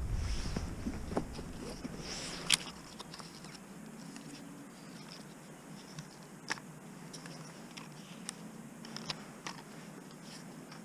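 Hands handling a folding camera drone (Ruko F11GIM2) taken from its soft case, its plastic arms being swung open. There is a rustle near the start, then scattered light clicks and snaps several seconds apart.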